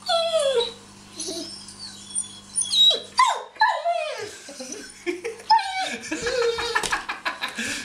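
Dog whining and yipping in a string of short, high cries that each fall in pitch, repeated several times.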